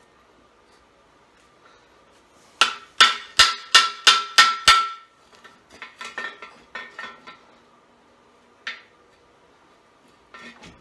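Sharp metal-on-metal strikes with a ringing tone as a freeze plug is worked out of a cast-iron small-block Chevy engine block: a quick run of about seven strikes, then lighter clinks and a single click.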